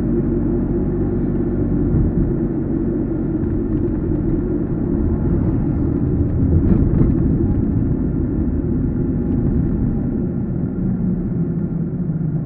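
Car driving along a road: steady engine drone and tyre and road rumble, with a brief louder swell about seven seconds in.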